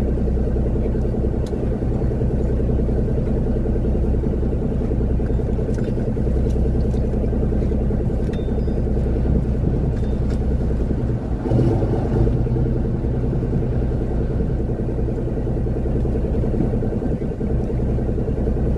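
Engine running at a steady speed, a low, even hum that holds throughout.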